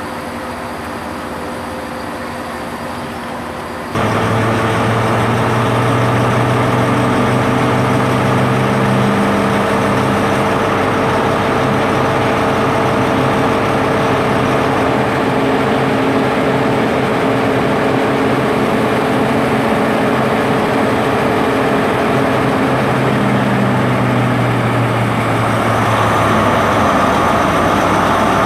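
Diesel engine of a class 43 HST power car idling at the platform, a steady deep hum with a constant low drone. About four seconds in it turns suddenly much louder and closer, and it grows a little louder again near the end.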